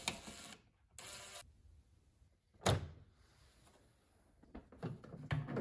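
A cordless drill-driver briefly spinning out a screw, then a single loud plastic clunk about two and a half seconds in and a few light knocks near the end as the microwave's plastic exhaust vent panel is handled and freed.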